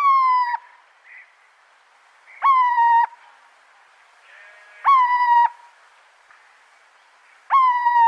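Little owl calling: a clear, slightly falling call of a little over half a second, four times at about two-and-a-half-second intervals.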